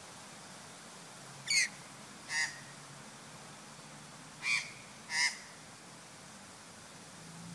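Australian magpie calling: four short, harsh calls in two pairs, the first pair about a second and a half in, the second about four and a half seconds in.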